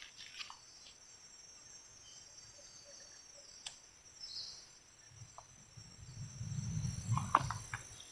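Faint, steady high-pitched chirring of insects, with a single sharp click about three and a half seconds in, and a low rumble with a few clicks close to the microphone near the end.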